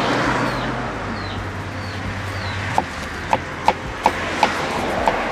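Kitchen knife chopping on a plastic cutting board: sharp knocks begin a little before halfway and come about two or three a second.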